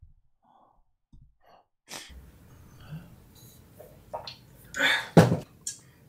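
A person's breath and mouth noises, with a loud, sudden burst of breath about five seconds in.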